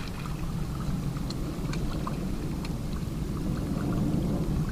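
Wind rumbling on the microphone over small waves lapping at the bank, with a few faint scattered ticks.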